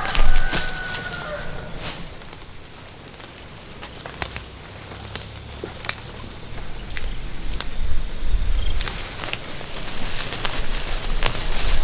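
A steady, high insect drone, with scattered sharp clicks and a low rumble that builds in the second half.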